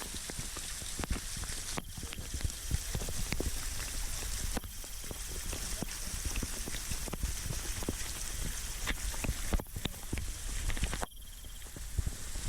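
Waterfall splashing and pattering: a steady rushing haze full of small crackles, with a deep rumble underneath. The sound drops out briefly a few times.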